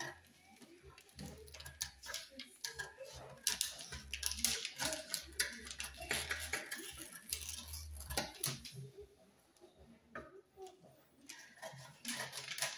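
Dressmaking scissors cutting through a paper pattern and the black fabric beneath it, in irregular snips and rustles. The snipping goes quieter about nine seconds in.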